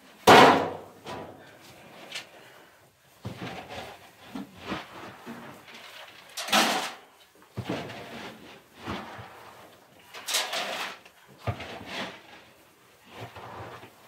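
A grain barrel banging around: a run of irregular knocks and thumps, the loudest right at the start and other strong ones about six and a half and ten seconds in.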